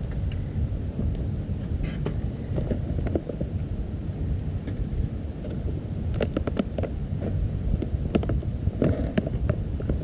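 Wood fire in a small titanium wood stove crackling, with scattered sharp pops in irregular clusters over a steady low rumble.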